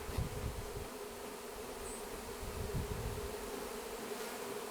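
A mass of honey bees buzzing around an opened hive after being shaken out of their nuc box, a steady hum, with a few low rumbles near the start.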